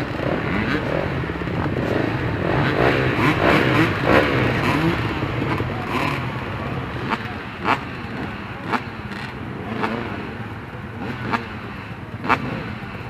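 Dirt bike engines running in a group, with revs rising and falling a few times in the first half. A handful of sharp knocks sound in the second half.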